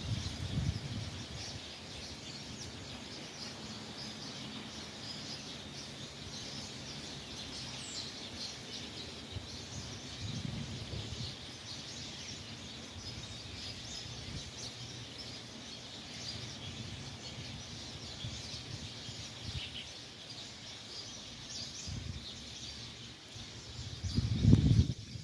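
Many small birds chirping and calling at once, a dense chorus of short high chirps. A low rumble comes and goes beneath them, loudest near the end.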